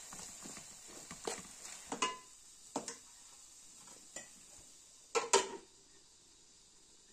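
Dishes and utensils clinking and knocking a few separate times, some strikes ringing briefly, with the loudest double knock about five seconds in.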